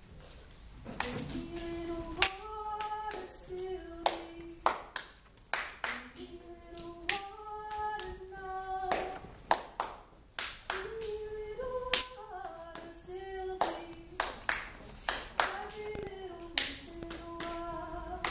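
A simple tune sung in four short phrases, with sharp hand claps keeping a beat between and through the phrases.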